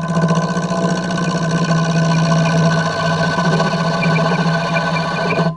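Wood lathe running with a gouge cutting into the spinning wood blank: a loud steady hum with the rasp of the cut. It breaks off briefly near the end.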